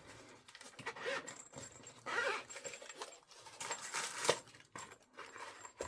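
Quiet, intermittent handling sounds as a safety-glasses case is opened: a zipper-like rasp with light rustling and scraping, in short separate bursts.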